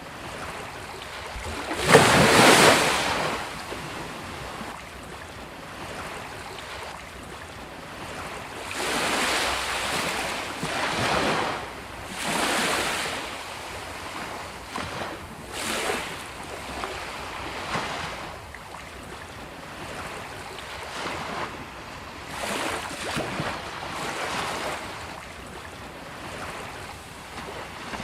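Sea waves breaking and washing up a beach in irregular surges; the loudest wave crashes about two seconds in, followed by several smaller washes.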